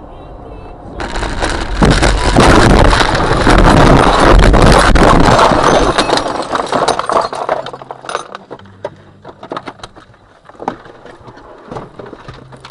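Car crash heard from inside the car: about a second in, a sudden loud crash of crunching and scraping that lasts about five seconds as the windshield shatters. It then dies away into scattered clinks and rattles of breaking glass and debris.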